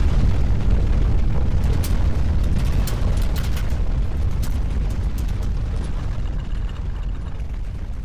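Deep rumble of earthquake shaking, slowly fading as the shaking dies down, with a scatter of faint clicks in the middle.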